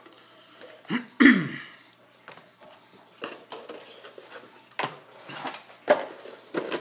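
A man clears his throat with a short cough about a second in, the loudest sound here. After it come scattered light clicks and knocks of objects being handled and set down.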